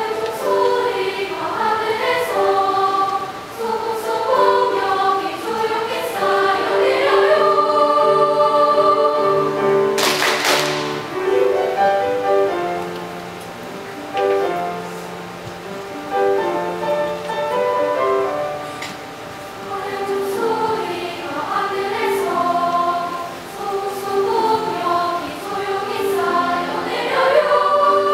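Children's choir singing in several-part harmony, with held notes changing in steps. About ten seconds in, a bright noisy shimmer swells for about a second over the voices.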